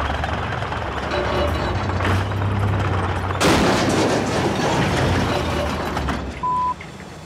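Caterpillar D6 bulldozer running and pushing mud, its diesel engine a low steady drone under heavy clanking and grinding noise. About three and a half seconds in a sudden, louder crash and clatter sets in and lasts a few seconds, as the dozer's track runs off. A short steady bleep near the end.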